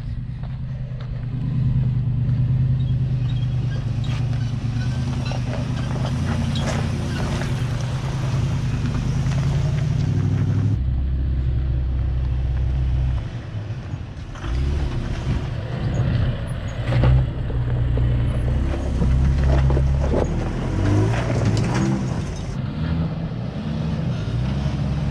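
A 4x4's engine running at low speed under load as it crawls over an off-road obstacle, its note rising and falling with the throttle, with scattered knocks.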